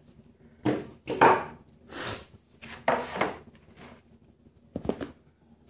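Plywood boards and ratchet-strap hardware being handled: about half a dozen separate short knocks, scrapes and clatters with pauses between.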